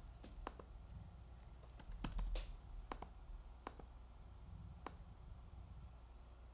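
Faint computer keyboard keystrokes and mouse clicks: a handful of separate sharp clicks, with a quick cluster about two seconds in.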